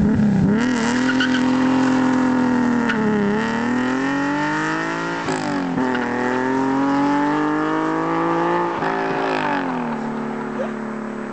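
TVR Tamora's straight-six engine at full throttle as the car pulls away hard, revving up through the gears with quick drops in pitch at each upshift. It eases off near the end, fainter as the car gets farther away.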